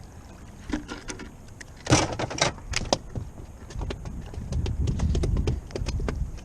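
Knocks and rattling clatter in a small fishing boat as a just-landed trout and the tackle are handled, a quick cluster of sharp knocks about two seconds in, then wind buffeting the microphone with a low rumble.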